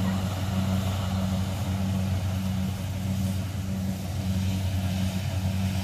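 Kubota DC70 combine harvester's diesel engine running steadily: a continuous low drone with a slight regular pulse.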